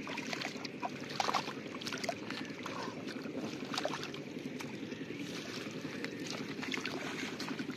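Splashing and sloshing in shallow muddy water as hands grab about for a fish: short, irregular splashes over a steady low noise.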